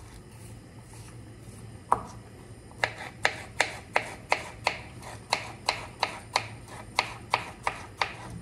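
Kitchen knife chopping vegetables on a cutting board: a single knock, then a run of evenly spaced cuts about three a second.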